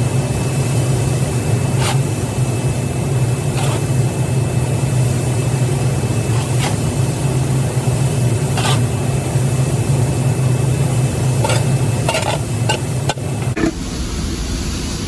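Shovel scraping and knocking at intervals of a few seconds, several in quick succession near the end, while a machine runs with a steady low hum. The hum cuts off about 13 seconds in.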